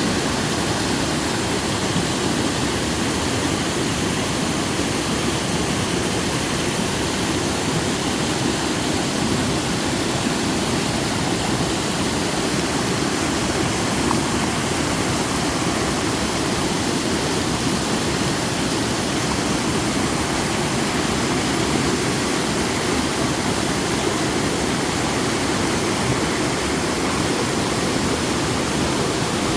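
Tiered waterfall pouring down rock into a mountain stream: a steady, even rush of falling water.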